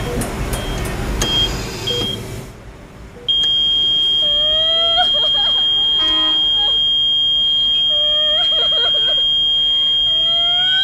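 Traffic noise with a few short electronic beeps fades out. About three seconds in, a hospital patient monitor's continuous flatline tone starts abruptly and holds steady, the alarm of a stopped heart. Rising, wavering cries sound over the tone a second later and again near the end.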